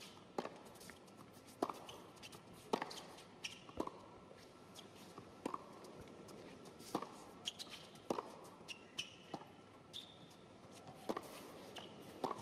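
Tennis ball being struck back and forth by racquets in a baseline rally on an indoor hard court, a sharp pock about once a second, with a few short squeaks of shoes on the court between strokes.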